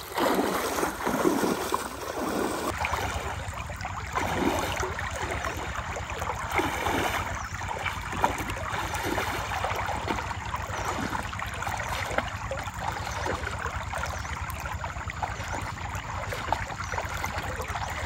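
Shallow river water flowing and splashing, with the sloshing of someone wading through it near the start.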